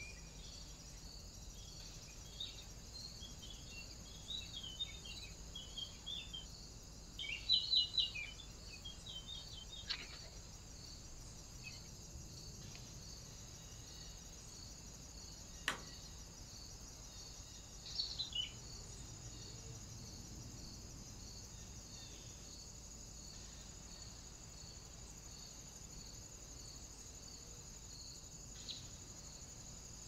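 Crickets chirping steadily, a high, even pulsing that runs through, with small birds chirping in quick bursts between about two and nine seconds in and again briefly around eighteen seconds. A single sharp click sounds near the middle.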